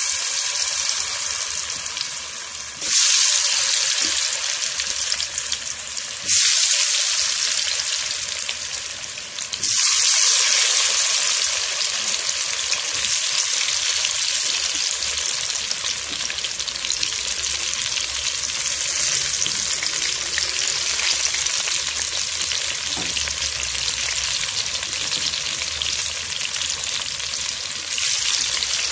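Potato cubes coated in turmeric and salt deep-frying in hot oil in a wok, a loud steady sizzle. The sizzle jumps up suddenly about three, six and ten seconds in as more handfuls of potato go into the oil, then settles into an even frying hiss.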